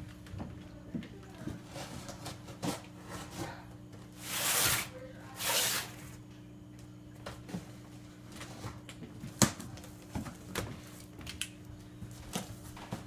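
Cardboard box and packaging being handled while a 3D printer is unboxed: scattered light knocks and clicks, with two longer rasping swishes about four and five and a half seconds in, over a steady low hum.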